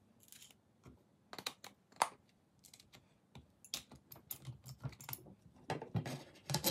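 Light clicks, clinks and knocks of a skateboard truck, its wheels and the mounting hardware being handled on a wooden table, a few spaced out at first and closer together in the last couple of seconds.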